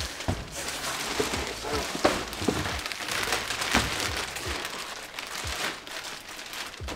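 Clear plastic wrapping crinkling and rustling as a golf bag in a plastic sleeve is pulled out of a cardboard box, with scattered crackles and light knocks throughout.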